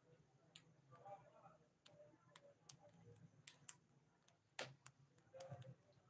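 Faint, irregular clicks of a ring-necked parakeet's beak nibbling at a piece of food held in its foot, about a dozen in all, with one sharper click about three-quarters of the way through.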